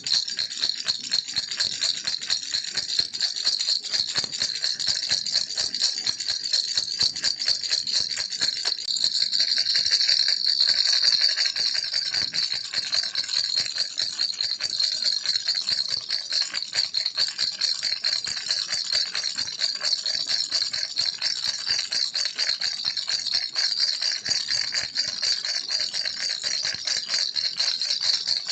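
Baby's toy rattle shaken without pause, a dense, fast, high rattle of beads against the shell, swelling slightly about ten seconds in.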